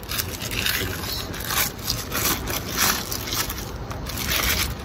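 Plastic packaging crinkling and rustling in irregular bursts as it is pulled and handled off a car window rain visor.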